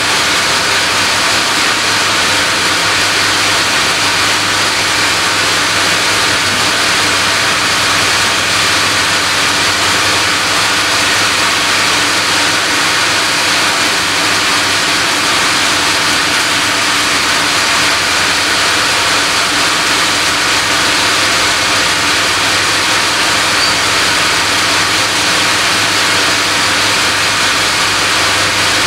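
Sawmill band saw and its log-carriage machinery running: a loud, steady, even noise with a constant low hum underneath.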